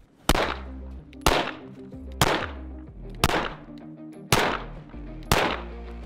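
Mossberg MC2C 9mm pistol firing six single shots at an even pace of about one a second.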